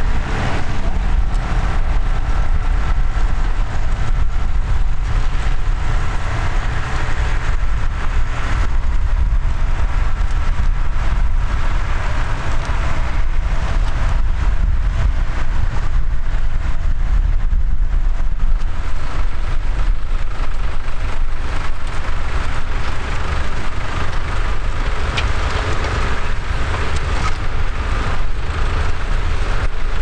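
Diesel tractor engines running steadily under load as the tractors pull ploughs through the soil.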